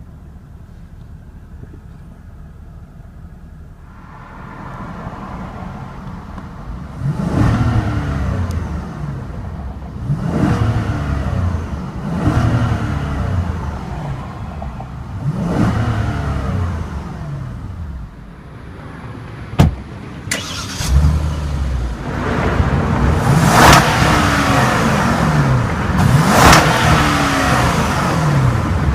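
2015 Hyundai Equus's 5.0-litre V8 idling, then revved again and again: a series of blips that rise and fall in pitch, coming harder and closer together in the last third. A single sharp click sounds a little past halfway.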